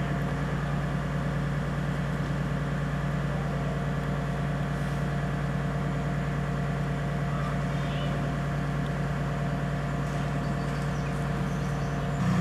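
Large mobile crane's diesel engine running steadily while it holds the footbridge span on its hook. Near the end its note rises and gets louder.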